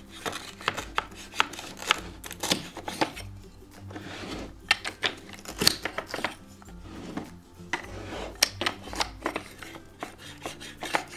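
Irregular clicks and taps of a plastic toy cutter slicing through a toy pizza, several a second, over background music.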